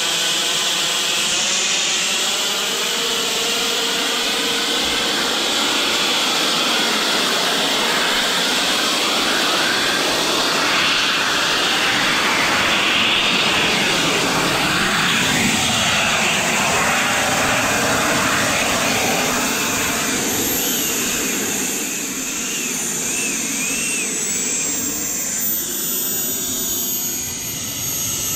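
Turbine jet engine of a 1:8 scale radio-controlled F-35B VTOL model running loud and steady, passing overhead at first. In the second half its high whine falls slowly in pitch.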